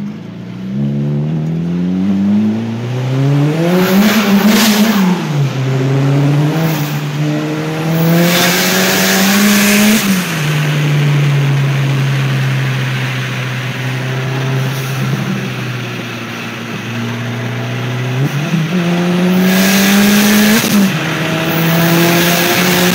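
A Mk5 Volkswagen GTI's big-turbo (HTA3582) four-cylinder engine, tuned to about 25 psi of boost, heard from inside the cabin, pulling hard through the gears. It climbs in pitch three times, each pull with a loud rushing hiss near the top and a sudden pitch drop at the upshift, with a steady cruising stretch between the second and third.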